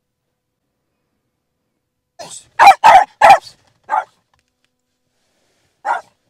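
Small dog barking in alarm inside a car at night, reacting to someone walking around outside. It starts about two seconds in with a soft woof, then a quick run of three loud barks, then two more single barks spaced a second or two apart.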